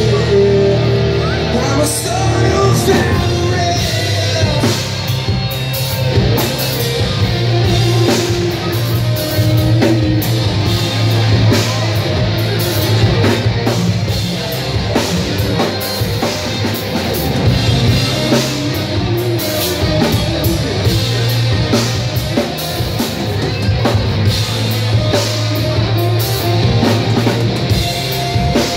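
Live rock band playing: electric guitars, bass guitar and a drum kit driving a steady beat.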